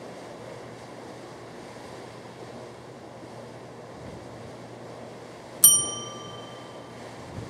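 Steady wind and sea noise on the deck of a ferry under way. About two-thirds through, a single bright bell-like ding sound effect rings out and fades over about a second and a half, the chime that goes with a subscribe prompt popping up.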